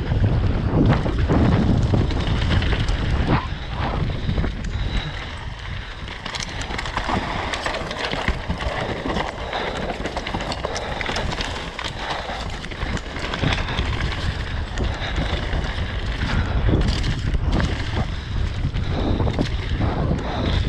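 Downhill mountain bike ridden fast down a rough trail: wind rushing over the microphone, with a dense run of knocks and rattles from the bike over the ground.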